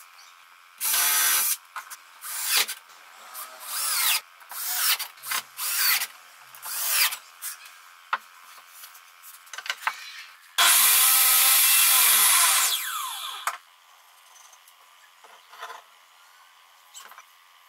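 Cordless drill running in a series of short bursts in pine boards. About eleven seconds in it makes one longer, steady run, and its pitch falls as the motor winds down.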